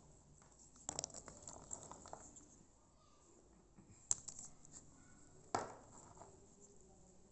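Dried areca nuts clicking and knocking against each other as a hand handles them over a heap of nuts: a few faint scattered clicks, with the loudest knock about five and a half seconds in.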